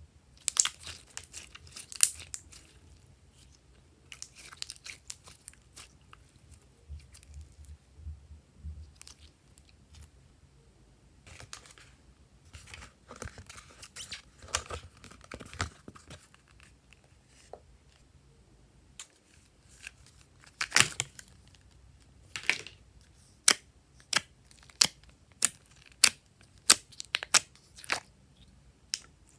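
Hands squishing and stretching slime, with sticky crackling. In the second half comes a run of sharp pops, about one or two a second.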